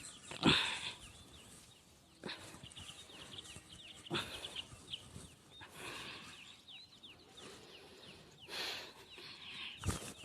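Faint birds chirping, many short quick downward chirps, with a soft whooshing rustle about every two seconds.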